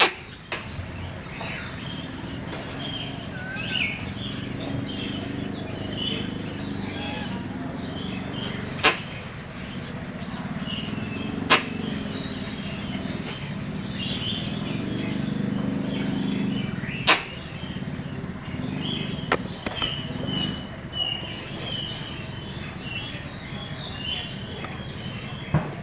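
Small birds chirping and twittering throughout over a steady low background rumble, with about five sharp clicks a few seconds apart.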